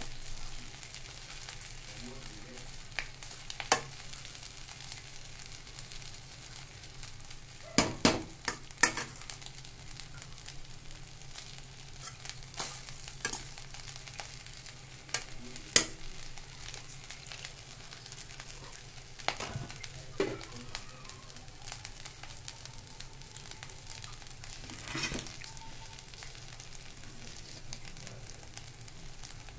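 Steel spoon stirring tempered rice in a steel pan over a steady sizzle, with irregular sharp clinks and scrapes of the spoon against the pan, a cluster of them about eight seconds in.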